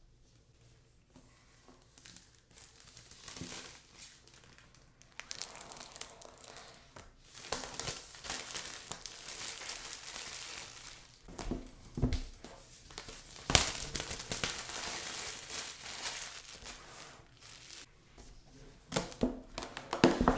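Packaging being crinkled and torn open by hand, in irregular rustling stretches, with a few sharp knocks as the box and its contents are handled, the loudest about 13 seconds in and several more near the end.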